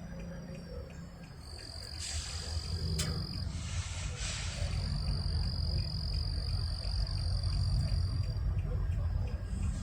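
Insects droning in a steady high pitch over a low rumble that grows louder after about two seconds, with two brief hissing patches early on.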